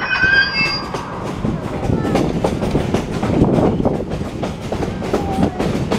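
Passenger railroad car rolling along the track, its wheels clattering over the rail joints over a steady rumble, heard in the open air from the car's end platform.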